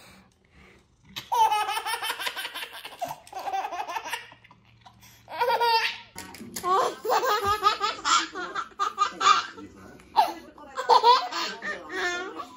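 A baby laughing hard in repeated bursts of high, pulsing giggles and belly laughs; about six seconds in, a different baby's laughter takes over.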